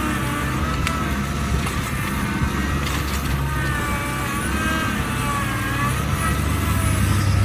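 Kubota compact diesel tractor engine running steadily, with a wavering whine above its low drone.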